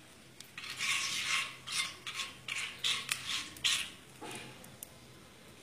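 Wooden spatula stirring whole spices (panch phoron, bay leaf, dried chilli) frying in oil in a non-stick wok: a run of quick scraping strokes over about three seconds, then one softer stroke.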